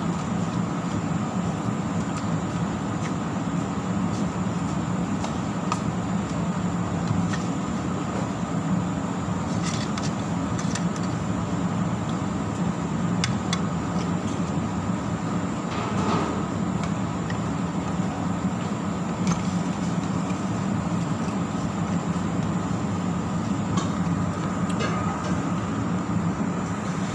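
Steady, loud background rumble with a faint high whine, with a few light clicks of utensils on a plate.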